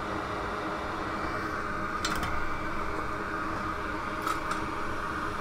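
Steady whir of an electric fan running, with a few faint clicks about two seconds in and again just past four seconds.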